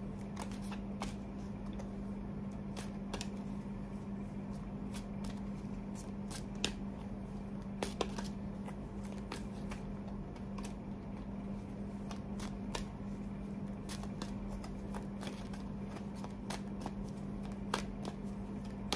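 Tarot deck being shuffled and handled by hand: a string of soft card flicks and taps, over a steady low hum.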